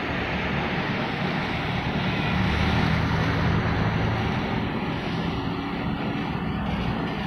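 Steady rush of heavy rain and wind, with the low, even hum of an engine underneath.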